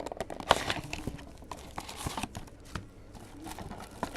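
Trading card packaging being handled: short crinkling rustles of wrapper and a scatter of light clicks and taps, with the loudest rustle about half a second in and another around two seconds.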